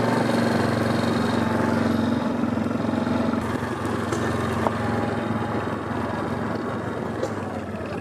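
Quad bike (ATV) engine running steadily while being ridden along a dirt farm track and into a grassy paddock.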